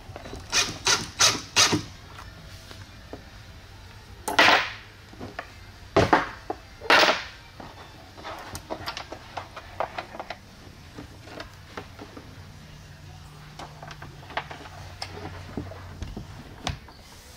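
Hands handling speaker wire and subwoofers against a wooden subwoofer enclosure while feeding the wires through the box. There is a quick run of four light clicks near the start, three louder scraping rustles between about four and seven seconds in, then scattered small ticks and taps.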